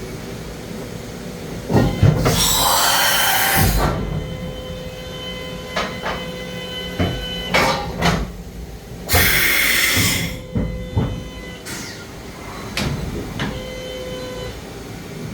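DMG Mori NHX5500 horizontal machining center running through an automatic cycle: a steady whine with repeated mechanical clunks and clicks, and two loud bursts of air hiss, one about two seconds in lasting nearly two seconds and a shorter one about nine seconds in.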